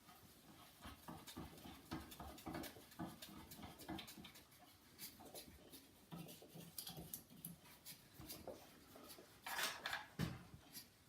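Faint small clicks and knocks of hands working on a bicycle wheel's spokes, with a louder scraping rustle near the end.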